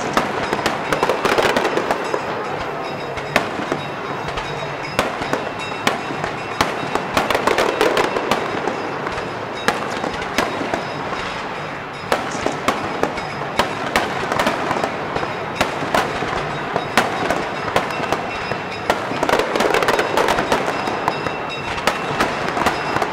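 Fireworks display: a continuous, irregular run of sharp bangs from bursting aerial shells, several a second, over a hissing rush that swells every few seconds.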